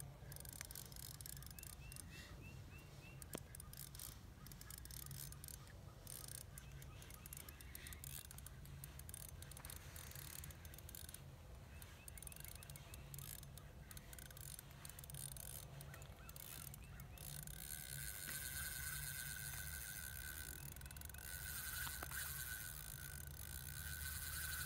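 Ice-fishing reel's drag whining steadily for roughly the last seven seconds, as a hooked lake trout takes line on a run. Before that there is only faint, quiet outdoor sound.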